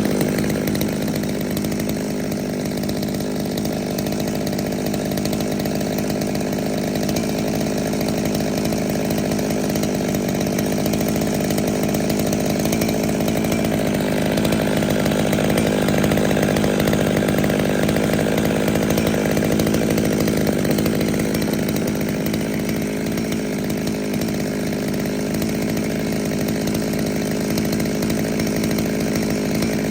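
Small two-stroke Holzfforma G111 chainsaw engine running at a steady speed.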